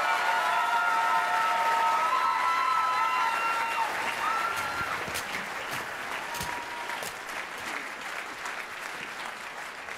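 Theatre audience applauding, with held cheering voices over the applause for the first five seconds or so; the applause then thins and fades as the curtain closes.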